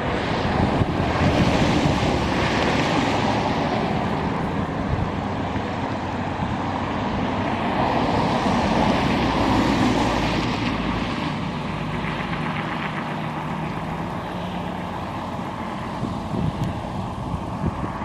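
Federal Signal outdoor warning sirens sounding a steady alert, heard from a distance under heavy wind noise on the microphone. The sound swells and fades twice.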